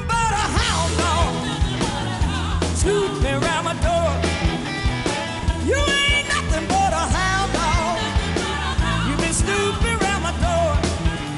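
Live blues band: a woman singing lead into a microphone over electric guitar, bass guitar and drums keeping a steady beat.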